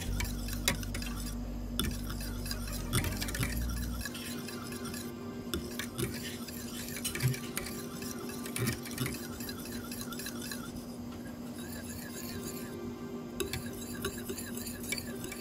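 A wire whisk stirring a creamy milk mixture in a stainless steel saucepan, its wires clicking and scraping irregularly against the pan.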